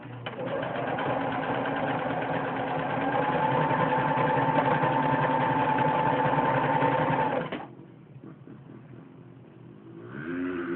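Singer 6012C electric sewing machine running, stitching a seam through fabric. It picks up speed about three seconds in, then stops abruptly about two-thirds of the way through.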